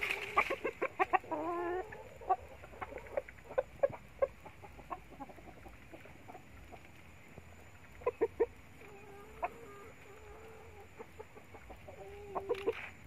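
Chickens clucking: a loud run of calls with wavering pitch in the first two seconds, then scattered short clucks, with a small cluster about eight seconds in.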